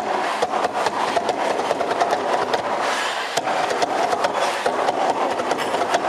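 Traditional drums beaten fast and densely as dance accompaniment, with a steady held tone running through the rattle of strokes.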